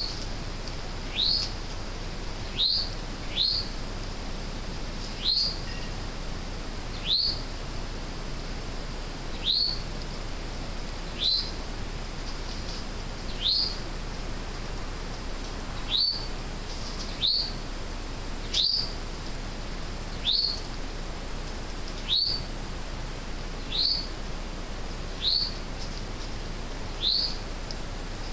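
A short, high call falling in pitch, repeated about every one to two seconds, which the uploader takes for a doe calling to her fawn.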